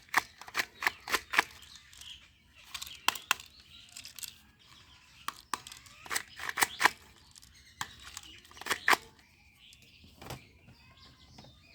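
Plastic toy guns being handled, making sharp clicks and snaps in irregular clusters with short pauses between them.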